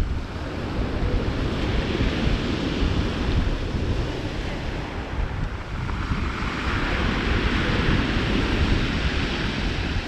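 Sea surf breaking and washing over a pebble beach, swelling about two seconds in and again around seven seconds, with a constant low rumble of wind on the microphone.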